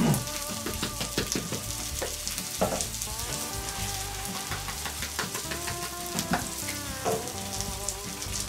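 Turkey steaks and a pan of rice with vegetables sizzling over a charcoal grill, with scattered crackles and pops.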